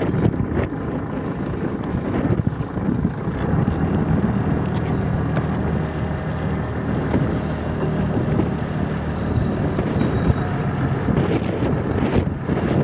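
Wind rumbling on the microphone aboard a boat on open water: a steady low rumble with no distinct events.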